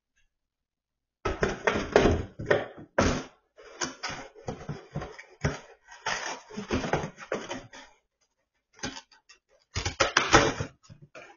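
A dog tearing and chewing at a cardboard box: irregular bursts of ripping and crumpling cardboard that start about a second in, with a short pause near the end.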